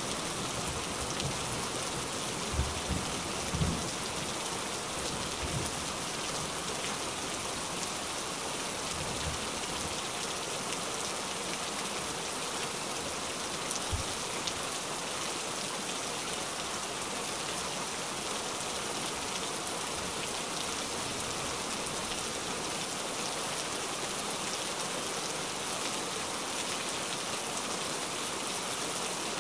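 Heavy rain falling steadily in an even hiss, with a few short low thumps in the first few seconds and one more about halfway through.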